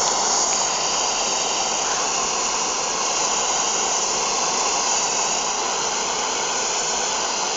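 Hot-air balloon's propane burner firing in one long, steady blast.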